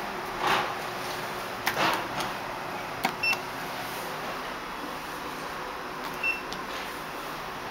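Elevator control-panel buttons being pressed, each giving a short electronic beep: one about three seconds in and another about six seconds in. A few clicks and a steady background noise inside the elevator car.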